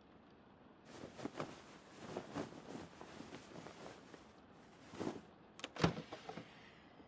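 Door sound effect: a stretch of rustling and handling noise, then a latch click and a single thump about six seconds in as the door shuts.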